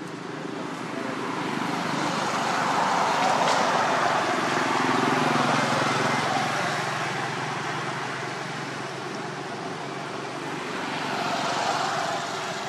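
A motor vehicle passing by: a broad engine and road noise that swells over the first few seconds and slowly fades, with a second swell near the end.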